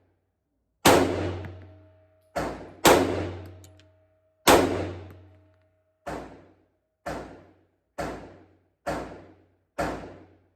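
Gunshots: nine shots, the first four loudest and unevenly spaced, the last five about one a second.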